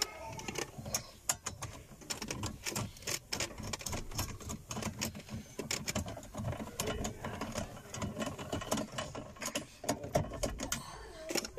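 Hand screwdriver turning T25 Torx screws back into the metal car-stereo mounting cage of a Fiat dashboard, with many quick irregular clicks and small metal knocks.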